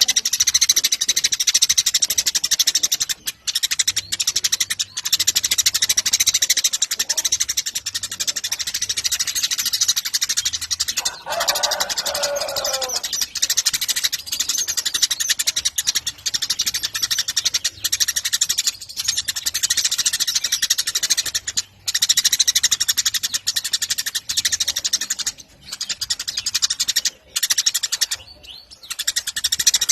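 Eurasian tree sparrows chirping in a dense, continuous chatter with only brief gaps. About eleven seconds in, a lower call falls in pitch for about two seconds.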